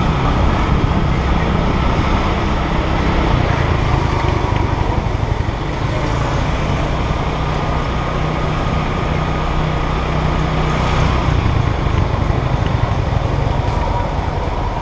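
Motor scooter riding along a street, its small engine running steadily, with the rumble of traffic around it.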